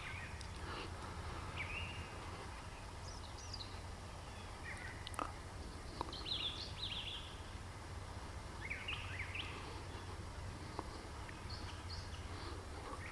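Small songbirds chirping now and then in short, scattered calls, faint over a steady low background hum, with a few soft clicks.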